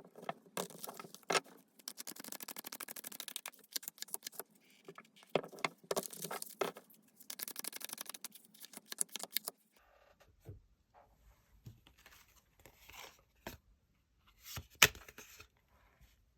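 Tarot cards being shuffled and slid against each other: dense papery rustling, scraping and clicking. After about ten seconds it turns to sparser taps, with one sharp click near the end.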